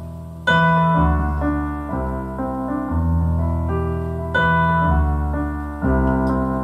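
Piano introduction played live: sustained chords, a new one struck about every second or so, before the vocals come in.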